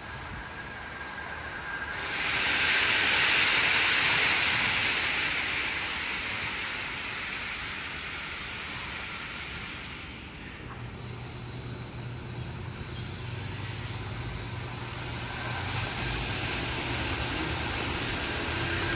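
Washworld Razor Edge touchless car wash spraying a car: a hiss of pressurised spray that starts suddenly about two seconds in and eases off. A low steady machine hum joins about halfway through, and the spray builds again near the end.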